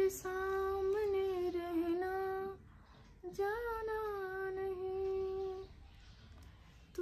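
A woman humming a tune in two long, held phrases, the second beginning about three seconds in.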